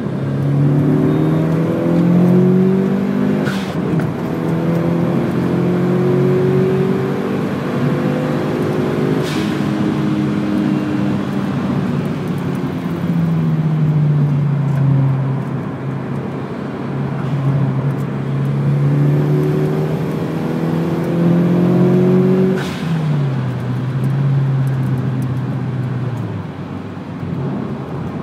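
Mitsubishi Lancer Evolution's turbocharged four-cylinder engine heard from inside the cabin on track, revving up hard under acceleration and falling in pitch at gear changes and when easing off for corners. Three short sharp noises come at changes in engine note.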